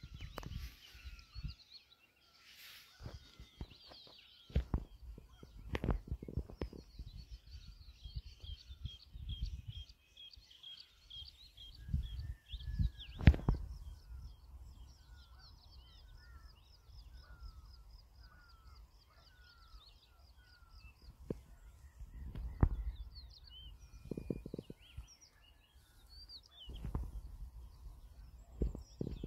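Several small birds calling in series of short repeated chirps and trills, with gusts of low rumbling coming and going that are louder than the birds, strongest around 13 and 22 seconds in.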